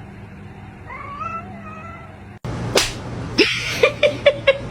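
A cat meowing faintly, one drawn-out wavering call about a second in. About halfway the sound changes abruptly, and a quick run of sharp clicks follows, several a second.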